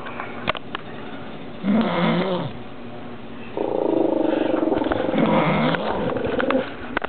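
A woman snoring: a shorter sound with a wavering pitch about two seconds in, then a long buzzing snore of about three seconds starting around halfway through, sounding like an animal.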